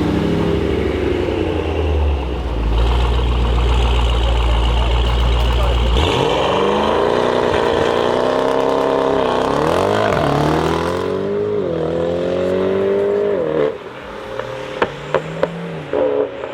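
An engine sound: a low, steady run for about six seconds, then revving up and down several times. It drops near the end to a scatter of sharp clicks and taps.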